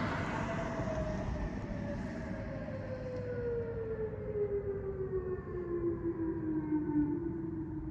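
Outdoor tornado warning siren winding down: a single wailing tone falling slowly and steadily in pitch as the siren coasts to a stop, over a steady low background noise.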